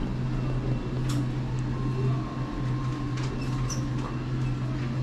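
Steady low hum of indoor room tone, with a few faint clicks.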